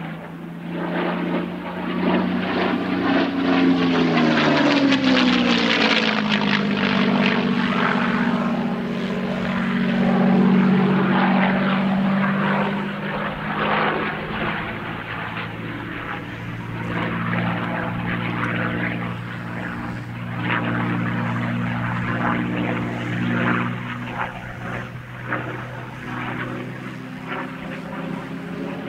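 P-51D Mustang's Packard V-1650-7 Merlin V12 engine droning as the fighter flies past, its pitch dropping as it passes about five seconds in. It is loudest for several seconds, then carries on as a steady, slightly quieter drone.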